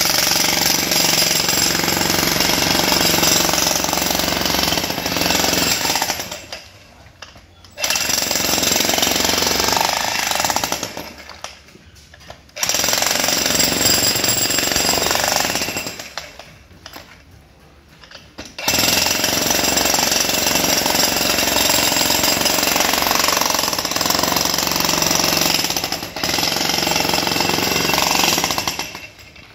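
Makita HM1306 electric demolition hammer breaking up concrete, its bit pounding into the slab. It runs in four stretches of steady hammering with three short pauses of a second or two between them, and stops just before the end.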